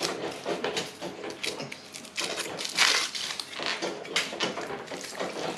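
A person biting and chewing lahmacun, a thin Turkish flatbread pizza: irregular crunching, tearing and wet mouth noises, with one louder noisy burst about halfway through.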